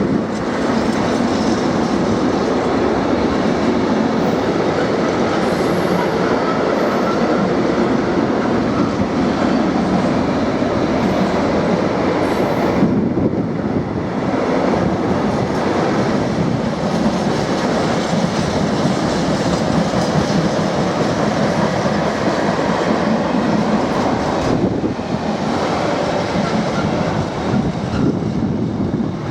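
A train running on the rails: a steady rumble of wheels on track that thins briefly twice, about halfway through and again near the end.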